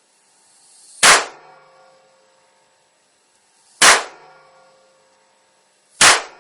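Three loud cracks of a high-power electrical discharge blasting across a spark plug's gap, each followed by a short ringing tail, about two to three seconds apart. The spark plug is being destroyed by the current.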